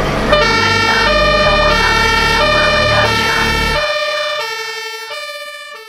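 Fire engine's two-tone siren switching back and forth between a higher and a lower pitch, with the low end of background music under it until that stops about four seconds in; the siren then fades out.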